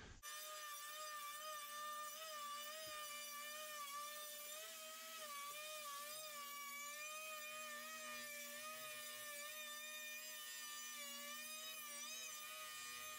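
Plunge router with a 2-inch straight-cut bit running as it routes into a white pine 2x4 door frame: a steady motor whine that wavers slightly in pitch as the bit is pushed through the wood.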